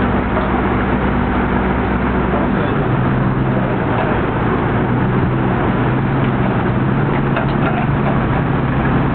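Boat's engine running steadily, heard from inside the cabin as a loud, even drone with a low hum that shifts in pitch about two and a half seconds in.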